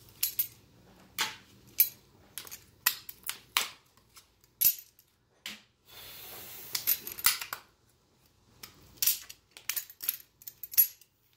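Plastic cracking and snapping as locking pliers twist a glued ring away from the plastic mounting flange of a stock Subaru WRX door speaker, breaking it along its factory seams a piece at a time. The irregular sharp snaps and clicks come every fraction of a second, with a scraping rush lasting about a second around six seconds in.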